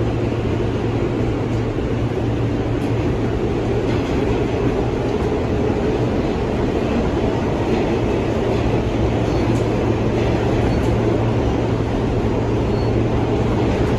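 R160 subway car running underground, heard from inside the car: a steady rumble of wheels on rail with a constant low hum under it.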